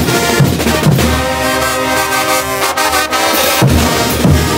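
Bolivian street brass band playing a morenada: big bass drums beat steadily, drop out for about two and a half seconds while the trumpets and trombones hold sustained chords, then come back in near the end.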